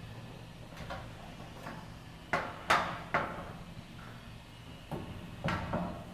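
Front wall panel of a vertical platform lift being lifted and shifted off by hand, knocking against its frame in sharp clunks: three close together a little over two seconds in, then another cluster near the end. A steady low hum sits underneath.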